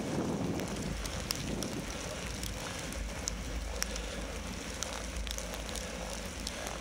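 Bicycle riding over a snow-covered road: steady tyre and road noise with a low rumble and scattered light ticks and crackles. Wind buffets the microphone at the start, then eases.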